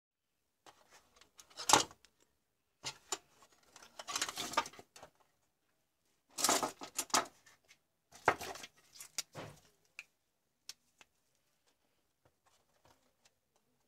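Clicks, rattles and rustling from hands handling the plastic case and loose wires of an 18650 battery pack. The sounds come in irregular spells through the first ten seconds, then only a few faint clicks.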